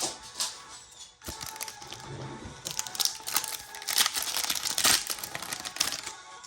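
Foil booster pack wrapper being crinkled and torn open, with a few sharp crackles early on and then dense, loud crackling through the second half. Quiet background music plays underneath.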